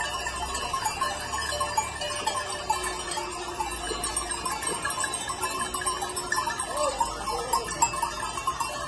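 A flock of sheep passing along a street, with many bells clanking continuously and a short bleat about seven seconds in.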